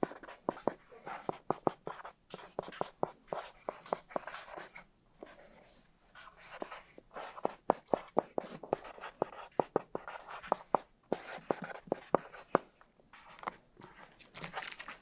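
Markers writing quickly on hand-held boards: an irregular run of short scratchy strokes and taps, with a few brief pauses.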